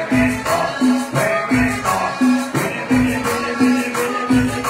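Loud dance music played over a sonidero sound system, with a steady beat, a repeating bass note and a shaker.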